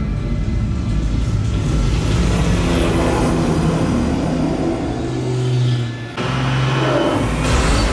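Film soundtrack of a car chase played through a Focal in-wall speaker and SVS subwoofer home theater system and heard in the room: vehicle engines and traffic under a tense orchestral score, with heavy bass. The sound dips briefly about six seconds in, then picks up again.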